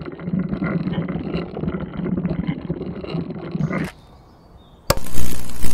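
Sound effects for an animated logo: about four seconds of rapid mechanical clattering, as of turning gears, which stops abruptly; then, near the end, a sharp switch click followed by a loud electrical buzz for about a second.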